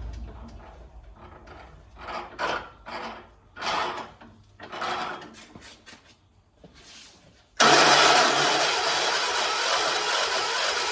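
1976 John Deere 300 garden tractor being cranked on a hard start: several short stabs of the starter, then about seven and a half seconds in the starter cranks steadily and loudly with a grinding sound, without the engine catching.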